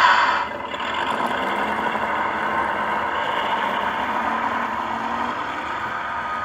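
O-gauge brass doodlebug model running on the track: the steady whir of its motor and wheels on the rails, after a short loud burst right at the start.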